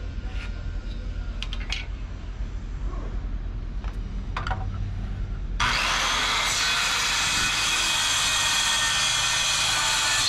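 A few light knocks over a low rumble. About five and a half seconds in, an electric power tool comes in suddenly, loud and steady, working wood.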